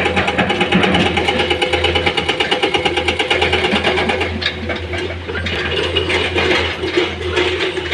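Diesel engine of heavy machinery running steadily with a fast, even clatter. From about four seconds in, a series of knocks and clatters joins it.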